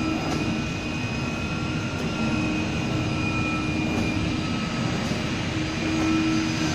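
CNC flatbed car-mat cutting machine running: a steady mechanical drone with several held whining tones, slightly louder near the end.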